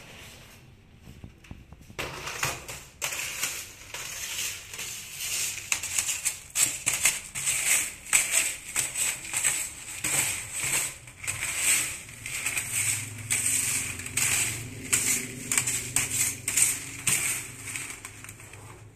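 Grinding machine crushing palm sugar: a dense, irregular crackling and rattling that starts about two seconds in and stops just before the end, with a low hum growing stronger in the second half.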